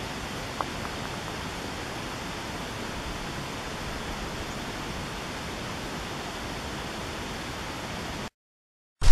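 Steady outdoor noise, an even hiss like wind or distant running water, that cuts off abruptly near the end. The first instant of a loud crash comes at the very end.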